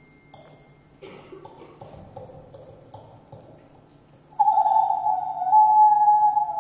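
Live bird-call imitation from a Sakha (Yakut) performer: a few soft short calls, then about four seconds in a loud, pure, high tone that is held and sinks slightly in pitch.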